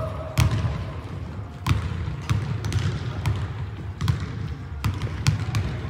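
Basketball bouncing on a hardwood gym floor: a string of irregularly spaced bounces, each echoing in the large hall.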